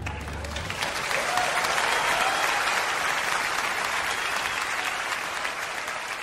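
Audience applauding. A held low double bass note dies away in the first moment as the clapping starts; the applause builds within about a second and then slowly tapers off.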